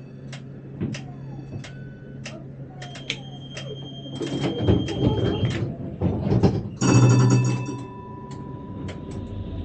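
Tram driver's cab signals: scattered clicks and steady electronic beep tones, then a loud ringing signal about seven seconds in whose tone lingers for a couple of seconds.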